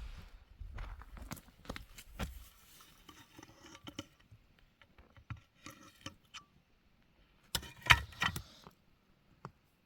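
Handling noises: a series of light clicks and knocks with brief ringing, then a louder burst of clatter about eight seconds in.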